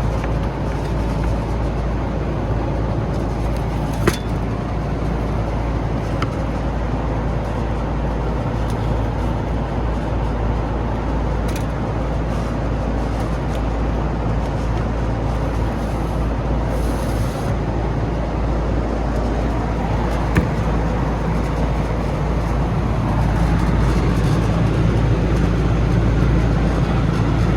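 Steady low drone of running HVAC machinery, with a few light knocks as air filters are slid back into the air handler's evaporator section.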